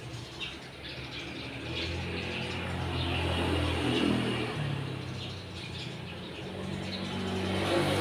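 Eurasian tree sparrows chirping, over the low hum of a motor vehicle engine that swells about midway and again near the end and is the loudest sound.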